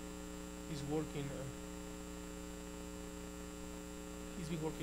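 Steady electrical mains hum, made of several fixed tones, under brief bits of a man's speech about a second in and again near the end.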